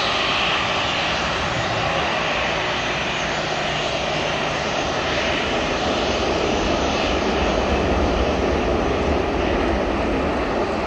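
Boeing 737-700's CFM56-7B turbofan engines running at low taxi power as the airliner rolls slowly past: a steady rush, with a deeper rumble building about two-thirds of the way in as the engine comes abreast.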